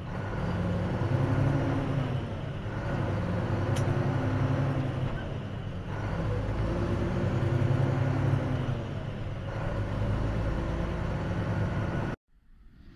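Mack dump truck's diesel engine heard from inside the cab, pulling up through the gears of its manual transmission: the engine note climbs, drops at each gear change and climbs again, four times over. The sound cuts off abruptly near the end.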